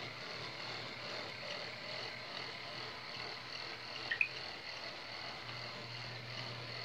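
HO-scale model freight cars rolling past on the track, a steady rolling noise of small wheels on rail, with one brief high squeak about four seconds in.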